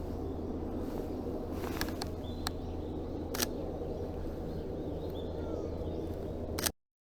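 Steady outdoor background noise with faint bird chirps and a few sharp clicks, then the sound cuts off abruptly near the end.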